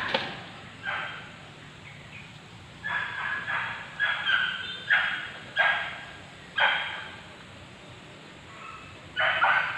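An animal giving short, harsh bark-like calls, about nine of them at irregular intervals.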